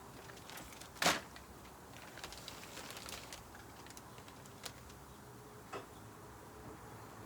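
A few scattered sharp clicks and knocks, the loudest about a second in, over a low steady background.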